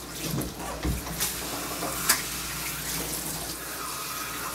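Water running from a hand-held hose sprayer into a grooming tub, a steady hiss, with one sharp click about two seconds in.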